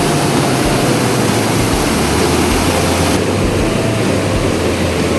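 Loud, steady rushing of a waterfall, a continuous even roar of falling water with no break.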